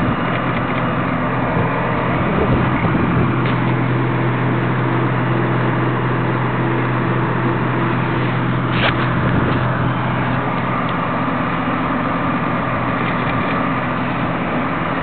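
Fire engine's engine running steadily at the fire scene: an even, low hum under a wide hiss, with one sharp crack a little past the middle.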